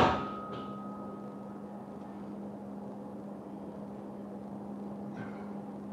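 A sharp clank as hands grab a steel pull-up bar, which rings on with a single clear tone for about two seconds as it fades. A steady low hum runs underneath.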